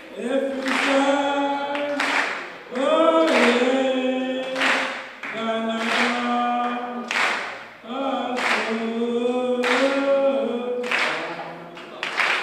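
A group of voices singing a cappella, with long held notes, while hands clap along on a steady beat about once a second.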